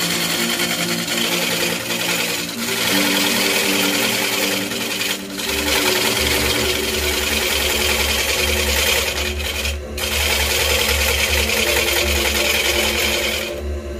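A hollowing tool cuts inside a spinning root-wood vase on a wood lathe: a continuous rasping, hissing cut. It breaks off briefly twice and stops sharply near the end.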